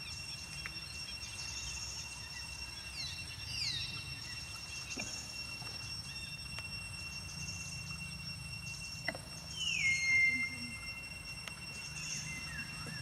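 Forest ambience: a steady high insect drone throughout, with a few falling whistled calls about three to four seconds in and a louder one about ten seconds in that drops and then holds its note briefly.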